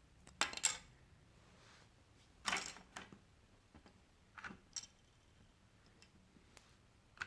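A drone's lid being handled and fitted back onto its housing: a few short clusters of clicks and brief scrapes, with quiet between them.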